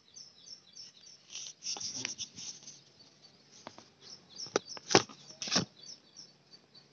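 A phone is handled right at its microphone: rubbing and several sharp knocks, loudest about five seconds in. Behind it, a bird chirps rapidly and high-pitched, several chirps a second.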